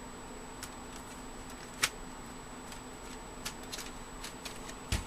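Scattered light plastic clicks and taps as a desktop PC's front bezel is handled and fitted onto the case, with one sharper click a little under two seconds in and a louder knock at the very end.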